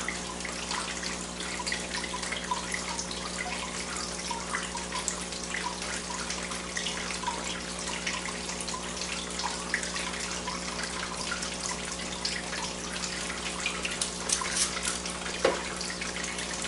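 Aquaponics system water trickling and splashing steadily, over a low steady hum.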